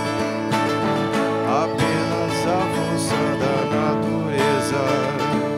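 Two acoustic guitars playing a song together, their chords ringing steadily without a break.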